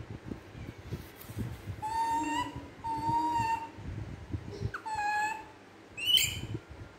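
Baby macaque calling with thin, drawn-out coos, three in a row about a second apart, then a short higher squeal near the end.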